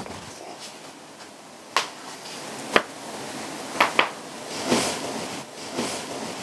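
A person's joints cracking during a morning stretch: four sharp cracks in the first two-thirds, the last two close together. A rustle of quilt being handled follows near the end.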